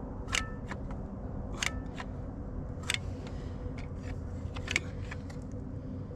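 A steady low mechanical hum, with four sharp clicks spread through it.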